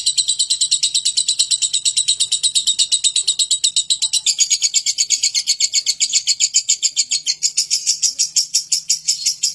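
Lovebird ngekek: one long, unbroken chatter of sharp high notes repeated about ten a second, cutting off right at the end.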